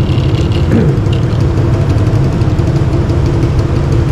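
Motorcycle engine running steadily, with a short falling tone about a second in.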